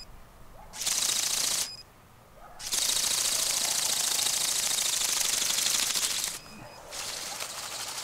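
Bionic Bird robotic bird drone flapping its wings: a fast, high-pitched rattle of rapid wing beats. It comes in bursts, briefly about a second in, loud and steady from about three to six seconds, then quieter near the end.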